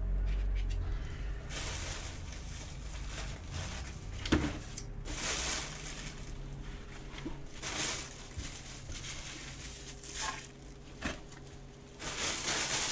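Rustling and crinkling of a takeout dumpling package being handled and opened, in a series of short bursts, with one sharp knock about four seconds in.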